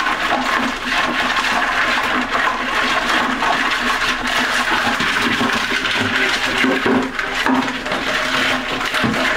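Water rushing steadily, with a steady low hum under it.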